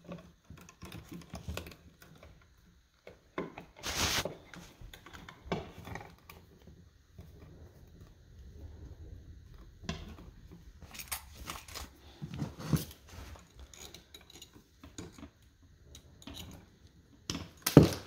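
Scattered clicks and scrapes of a hand wire stripper stripping insulation off electrical wires, with the wires being handled, louder about four seconds in and again near the end.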